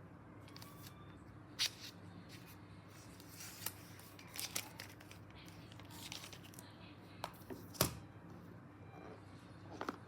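Close-up handling of packaging: scattered sharp clicks and taps with short bursts of rustling and tearing, the loudest click nearly two seconds in and another just before eight seconds.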